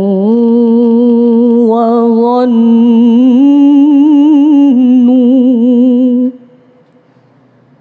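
A woman reciting the Quran in the melodic tilawah style, holding one long ornamented note on the last syllable of a phrase. The note wavers, steps up a little about three seconds in, then cuts off about six seconds in, leaving faint hiss.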